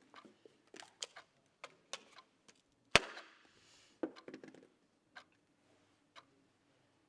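A clock ticking about once a second, with small clicks of handling at a desk. One sharp knock on the desk about three seconds in, followed by a few quick clicks.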